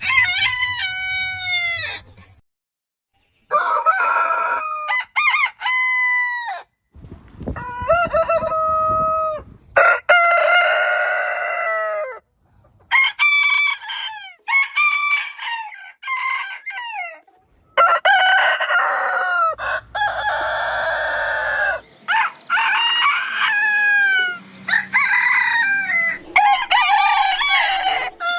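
A rapid series of rooster crows, one after another, differing in pitch and length, from several roosters. Some crows are long and drawn out, others short, and they are joined by abrupt cuts with brief moments of dead silence between them.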